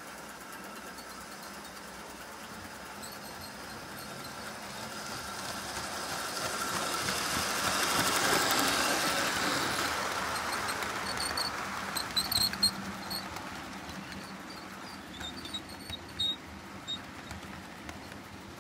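A model train of blue-and-grey coaches running past on layout track, a wheel-on-rail rumble that swells, peaks about eight seconds in, and fades away. This is followed by a few sharp clicks and brief high squeaks about twelve seconds in.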